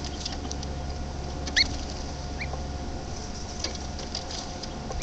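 A small bird gives two short rising chirps, about a second and a half and two and a half seconds in, over faint scattered clicks.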